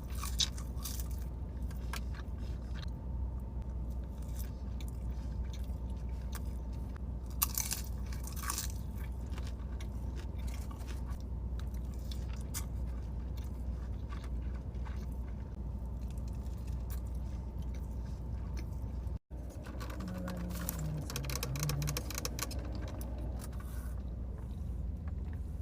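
A person chewing and crunching food close to the microphone, with many short crackles of bites, over a steady low hum; the sound cuts out for a split second about three-quarters of the way through.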